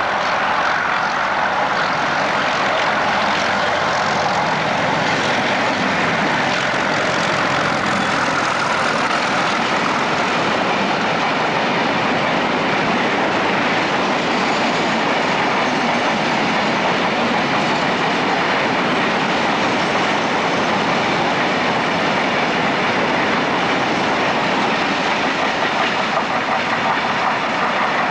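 A pair of Class 31 diesel-electric locomotives hauls a train of stone hopper wagons past at speed. The engines are heard in the first seconds as they go by, then the long rake of hoppers rolls past on the rails in a steady, loud noise.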